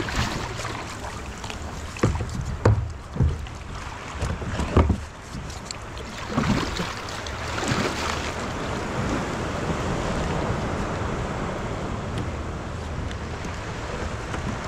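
A few dull knocks and bumps in the first five seconds, then a steady rushing noise of wind on the microphone.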